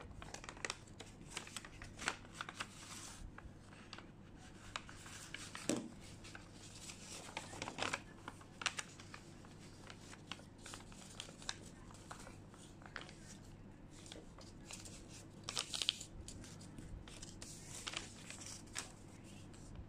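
A sheet of white paper being handled and folded by hand: irregular crinkling and rustling with small sharp crackles as it is pressed flat and creased, a few of them louder now and then.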